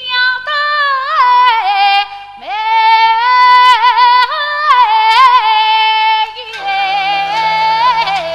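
Yue opera aria sung by one woman's voice, drawing out long held notes with wavering ornaments and pausing briefly for breath a little over two seconds in. Soft instrumental accompaniment comes in under the voice about two-thirds of the way through.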